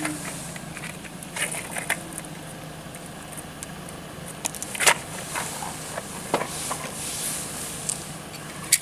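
Scattered small clicks and rustles of cartridges and their cardboard ammunition box with its plastic tray being handled, the sharpest click about five seconds in, over a steady low hum.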